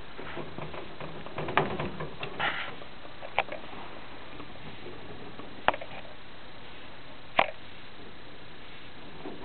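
Pet rats moving about a wire cage: a handful of separate sharp clicks and taps on the wire mesh, with a short scrabbling cluster about two and a half seconds in, over a steady hiss.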